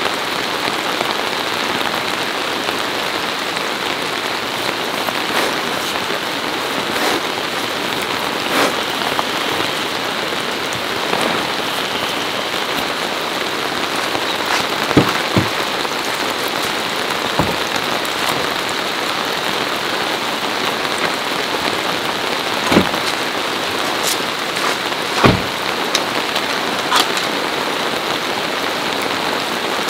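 Steady rain falling on a camping tarp and wet gravel, with a few sharper single drip taps in the second half.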